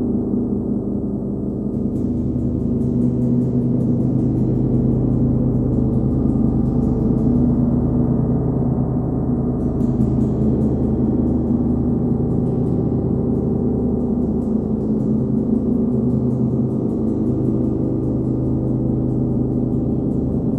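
39-inch Nepalese wind gong played with a homemade hard rubber ball mallet, kept ringing by light repeated strokes into a sustained, dense wash of overlapping tones with the deep hum strongest. The swell builds a little about two seconds in and then holds steady.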